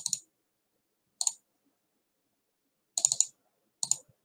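Computer mouse button clicks while working through menus and a file dialog: a quick pair at the start, a single click about a second in, a fast cluster around three seconds, and one more near the end, with silence in between.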